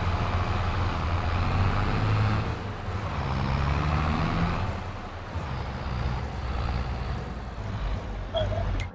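A large farm machine's diesel engine runs steadily with a deep drone, its pitch shifting slightly about midway. The sound cuts off abruptly near the end.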